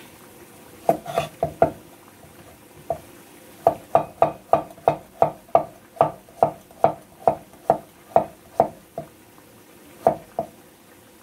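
Broad-bladed kitchen knife chopping through a zucchini onto a wooden cutting board. A few scattered chops come first, then a steady run of about three chops a second for some five seconds, then a couple more near the end.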